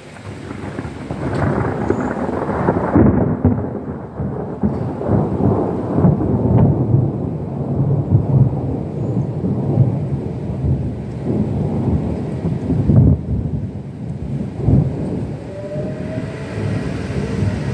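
Thunder rolling, a long, deep rumble that swells in just after the start and keeps going with repeated peaks and lulls.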